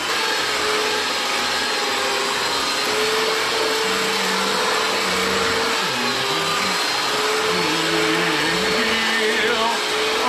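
Handheld electric mixer running steadily, its beaters working a stiff, sticky flour-and-egg dough in a plastic bowl. The motor gives a steady whine that wavers a little in pitch as the load shifts.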